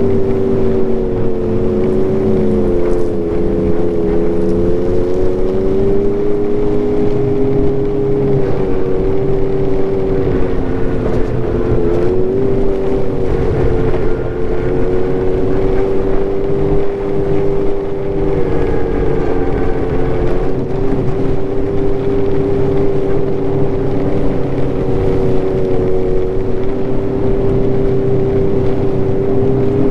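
2022 Ski-Doo Renegade Enduro's Rotax 900 ACE Turbo three-cylinder engine running at steady trail speed, its pitch dipping briefly and recovering a few times as the throttle eases and opens again.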